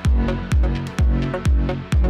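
Electronic dance music with a four-on-the-floor kick drum at about two beats a second, a deep bass line and crisp hi-hats.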